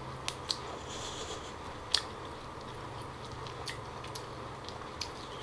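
Close-miked eating of lobster: chewing and mouth sounds with scattered sharp clicks, the loudest about two seconds in.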